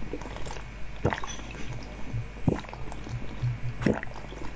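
Green jelly being sucked and slurped from the mouth of a glass flask, with three short wet slurps about a second and a half apart.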